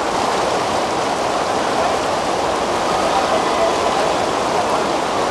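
Steady rush of floodwater.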